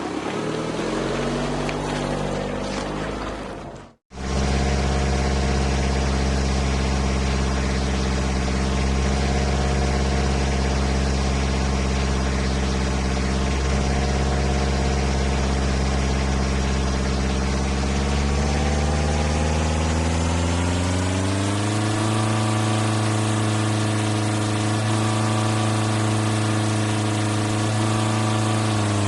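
A motor running steadily with an even hum. Its pitch rises smoothly about two-thirds of the way through, then holds at the higher pitch. Just before the hum starts, the sound cuts out briefly.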